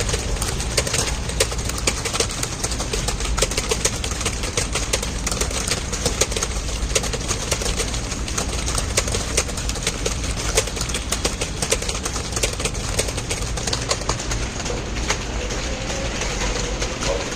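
Computer keyboard being typed on fast and continuously, many key clicks a second, over a steady low hum.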